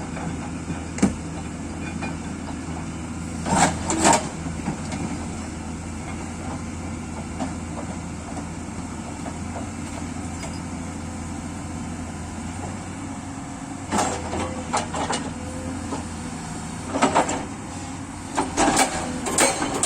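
Kato excavator's diesel engine running steadily while its bucket works against large rocks: a sharp knock about a second in, then bursts of scraping and clunking around four seconds in and again from about fourteen seconds on, thickening near the end.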